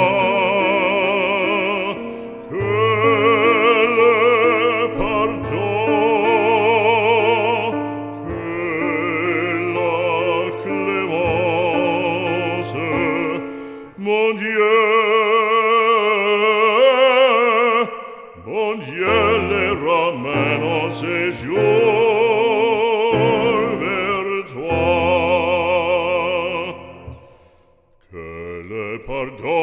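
Background music: operatic singing with a wide vibrato over a classical accompaniment, in long phrases with brief pauses between them.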